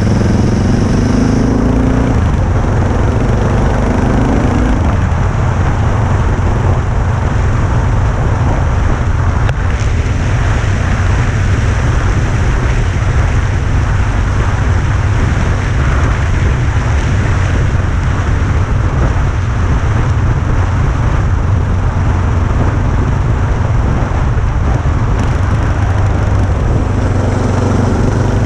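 Motorcycle on the move: a loud, steady low rumble with an even rushing noise over it. The engine's pitched note stands out for the first few seconds and again near the end.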